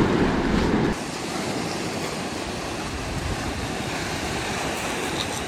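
Surf washing in over rocks and sand in a steady hiss. For the first second, a louder low rumble of wind buffeting the microphone stops abruptly.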